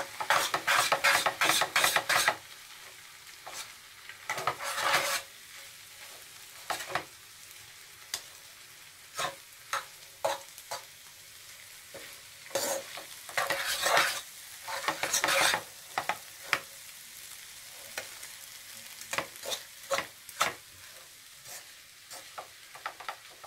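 A metal fork stirring and tossing noodles in a nonstick frying pan, mixing in the soy sauce, vinegar and masala: clusters of scraping and clicking against the pan, busiest at the start and again about 13 to 16 seconds in, with a faint sizzle in between.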